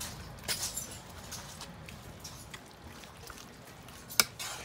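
White plastic ladle stirring thick seafood pajeon batter in a pan: wet squelching of the batter with scattered clicks of the ladle against the pan, the loudest a sharp knock about four seconds in.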